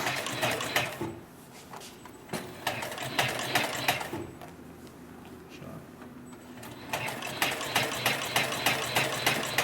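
Heavy-duty 204-370 upholstery sewing machine stitching in three short runs with pauses between them: about a second, then about a second and a half, then a longer run near the end, each run a rapid even clatter of stitches.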